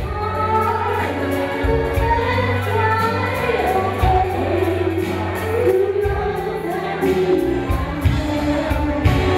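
A woman singing a song into a microphone, with instrumental accompaniment holding sustained low bass notes beneath the melody.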